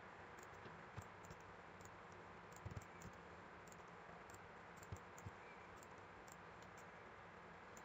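Near silence: low room hiss with a few faint, scattered computer mouse clicks as points are picked on screen.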